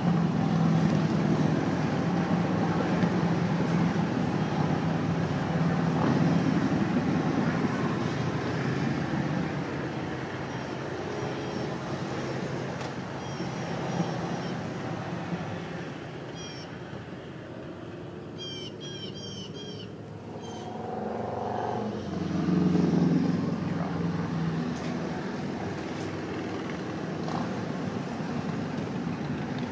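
Touring motorcycles riding past one after another, their engines swelling and fading as each goes by, with a pickup truck passing among them. Birds chirp in a quieter stretch about midway.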